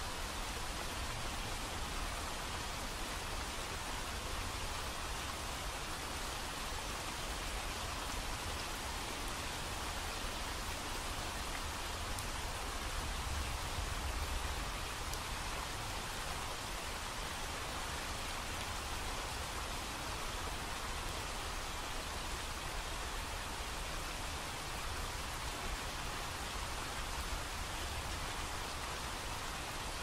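Steady rushing water noise, even and unbroken, with a slight swell in the low rumble about halfway through.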